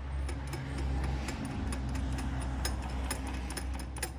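Light metallic ticking and clicking of a nut and washers being spun by hand along the threaded rod of a homemade axle-seal installer tool, over a steady low hum.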